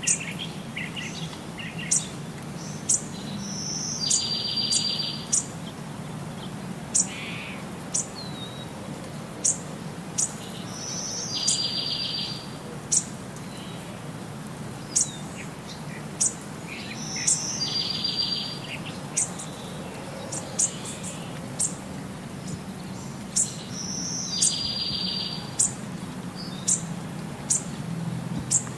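Birdsong: sharp high chirps every second or so, with a short rapid trill coming back about every six and a half seconds in the same repeating pattern, over a faint low background hum.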